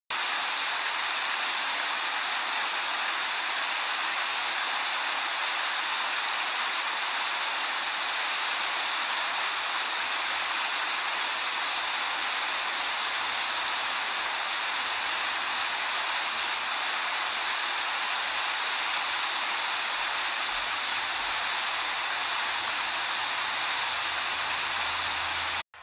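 Steady rush of river water pouring over a waterfall and through rapids, an even hiss with no change that cuts off abruptly near the end.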